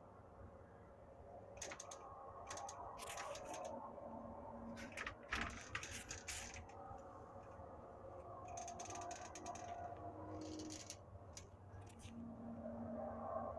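Faint whirring heard outdoors from an unidentified source, with faint tones that come and go and many scattered clicks and ticks.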